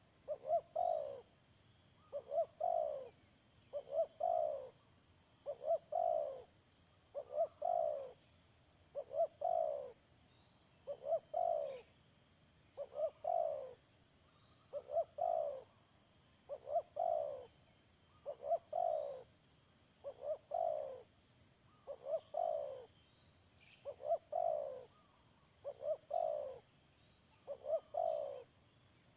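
Spotted dove (tekukur) cooing over and over, a phrase of a couple of short notes leading into a longer falling coo, repeated about every two seconds. A faint steady high hiss lies underneath.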